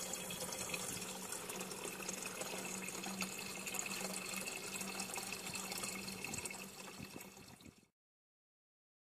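Liquid, most likely engine coolant, running and splashing steadily with a faint low hum under it. It cuts off abruptly about eight seconds in.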